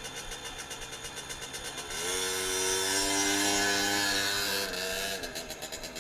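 Small dirt-bike engine idling with a rapid even ticking, then revved up about two seconds in and held at higher revs for roughly three seconds before dropping back.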